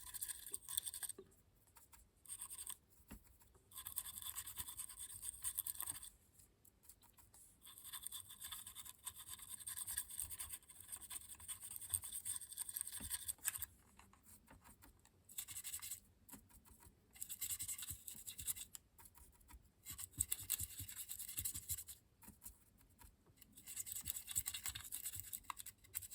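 A brush scrubbing sand-coloured weathering pigment powder into a model railway vehicle, a dry bristly scratching in repeated bursts of a second or a few seconds with short pauses between.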